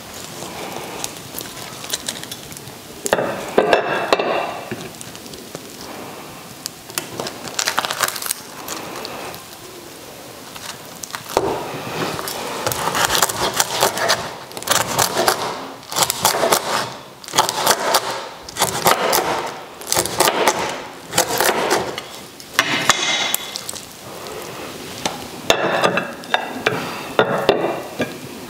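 Crisp, blistered roast pork belly crackling crunching and cracking as it is cut with a knife on a wooden chopping board, in repeated bursts that come thick and fast from about a third of the way in. The skin is shatteringly crisp.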